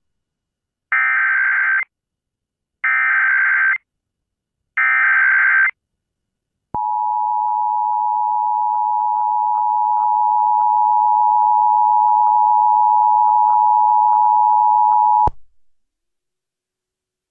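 Emergency Alert System activation for an Amber Alert: three short bursts of SAME header data tones, each just under a second, then the EAS two-tone attention signal (853 and 960 Hz) held steady for about eight and a half seconds before cutting off.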